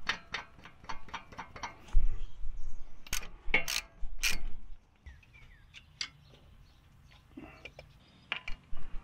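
Metal hardware of a sway bar disconnect clicking and clinking as a nut is spun onto its threaded steel pin: quick clicks at first, then a few louder knocks, then quieter.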